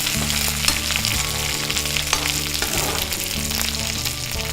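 Oil crackling and sizzling in a hot kadai, with light spatula scrapes, as fried garlic, tamarind and dried red chillies are stirred into wilted mint leaves. The stove is already off, so the sizzle comes from the pan's leftover heat.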